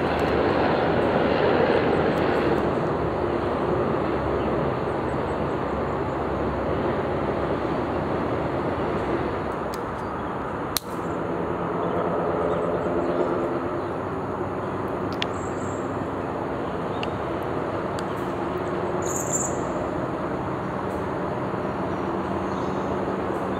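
Steady drone of a distant engine over outdoor background noise, with a brief click about eleven seconds in.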